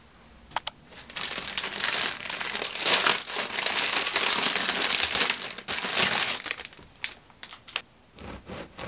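Thin clear plastic bread bag crinkling loudly as a ciabatta loaf is pulled out of it. The crinkling starts about a second in, runs for about five seconds, then trails off into a few light rustles and taps.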